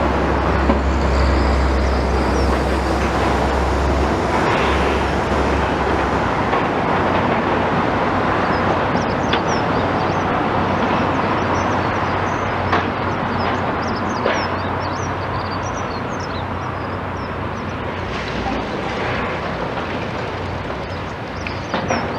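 Steady outdoor noise with a low rumble that fades after about six seconds, and scattered short clicks and high chirps throughout.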